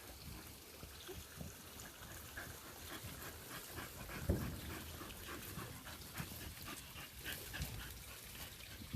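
Dogs working at an animal's burrow, whimpering amid repeated scratchy scrabbling, with one louder thump about four seconds in.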